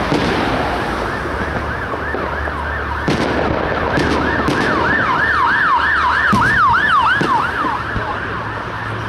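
Emergency vehicle siren in fast yelp mode: a rapid wail repeating about three times a second. It grows louder past the middle, then fades near the end. A few firework bangs sound over it.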